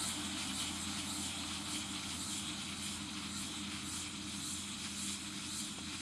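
John Deere tractor running steadily while pulling a working Lely Welger RPC 445 Tornado combined round baler and bale wrapper: a continuous machinery drone with a hissing top, easing off a little as the rig moves away.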